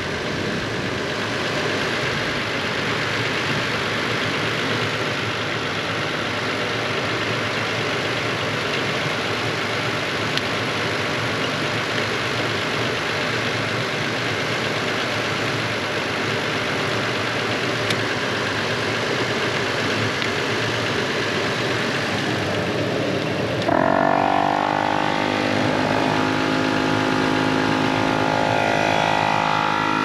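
Portable 12-volt tire-inflator air compressor, wired to a truck battery, switching on near the end: its motor spins up with a short rising whine, then runs with a steady hum. Before it comes a steady rushing noise.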